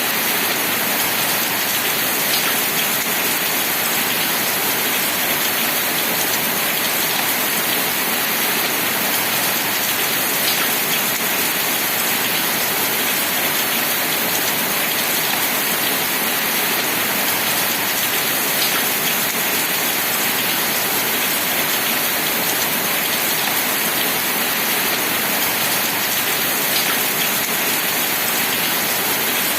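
Steady rain falling: an even, dense hiss with a few faint sharper ticks.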